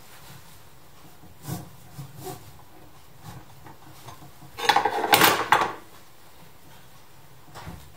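Rope-rescue hardware, a metal pulley and carabiner, clicking and clattering as it is handled and rigged onto the rope. A few soft clicks come first, then a louder clatter of about a second just past the middle.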